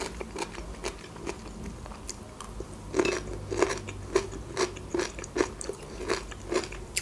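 A person chewing crunchy food close to the microphone: a few soft mouth clicks at first, then steady crunches about twice a second from about three seconds in.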